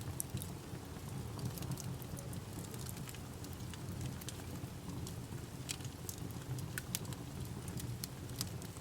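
Campfire burning: sharp, irregular crackles and pops over a low, steady rumble.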